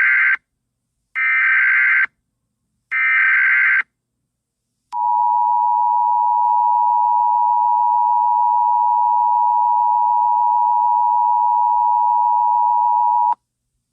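Emergency Alert System tones: the end of one burst and two more bursts of shrill digital header data, each about a second long, then the steady two-tone EAS attention signal held for about eight seconds before it cuts off sharply. It signals the start of a National Weather Service tornado warning.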